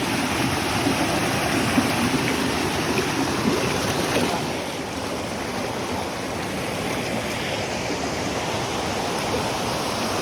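Steady rush of water in a mountain stream at a waterfall, dipping slightly after about four seconds.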